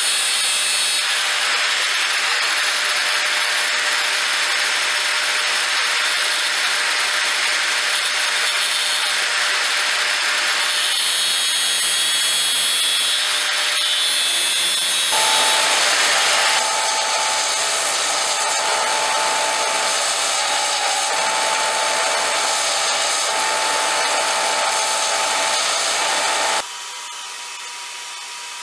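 Angle grinder with a cut-off wheel cutting through a steel bar: a loud, steady grinding hiss that shifts a few times as the wheel bites and eases, with a steady whine from about halfway. Near the end the grinding stops abruptly, leaving a much quieter hiss.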